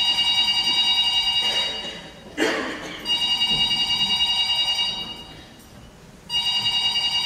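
An electric bell ringing in three rings of about two seconds each, with gaps of about a second between them. A short burst of noise falls between the first two rings.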